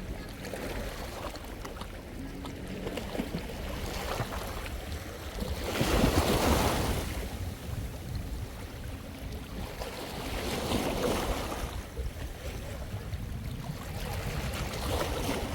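Sea waves washing onto the shore, swelling and falling back three times, the loudest about six seconds in, with wind rumbling on the microphone throughout.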